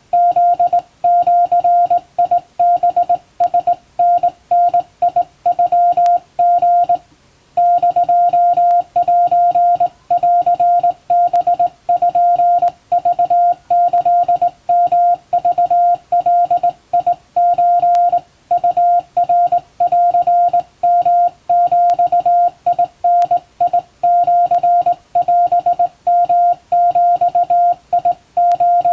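Japanese (Wabun) Morse code sent by hand on a straight key: a single steady beep tone switched on and off in short dots and longer dashes, with a longer pause about seven seconds in.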